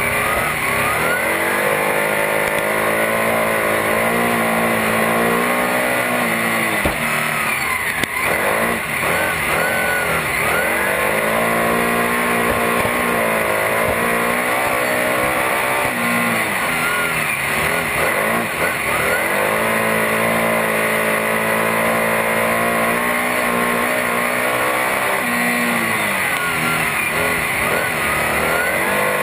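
Superstock speedway car's V8 engine racing at full noise from inside the cockpit, rising in pitch as it accelerates and falling as it backs off, in a repeating cycle about every six seconds around the oval.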